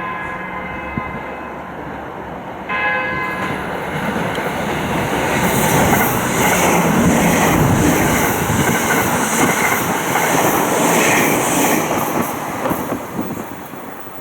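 A train sounds two short horn blasts, then passes close by. Wheel and rail noise rises to a loud rush with a regular clickety-clack of wheels over rail joints, then fades near the end.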